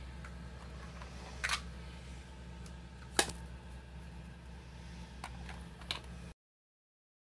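Plastic clicks and knocks from a toy recycling truck being handled, with two sharp clicks about a second and a half and three seconds in and lighter ones later, over a steady low hum. The sound cuts out entirely about six seconds in.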